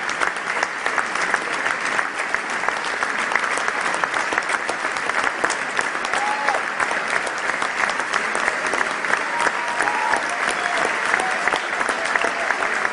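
A large theatre audience applauding: dense, steady clapping with no let-up, with a few faint voices in the crowd.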